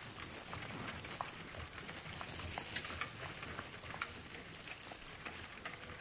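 A steady crackling hiss with many small scattered clicks and a few brief ticks.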